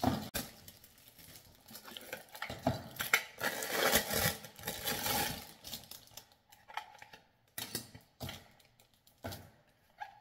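Plastic packaging crinkling and rustling as a small magnetic pen holder is unwrapped and handled, the rustling densest a few seconds in. Later it gives way to a few short clicks and taps of the holder being turned over in the hands.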